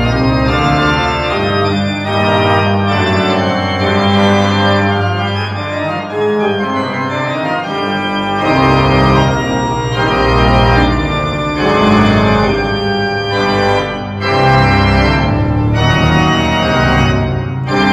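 Church pipe organ playing a polyphonic piece: sustained chords and moving lines on the manuals, with a deeper bass line that comes in about eight seconds in.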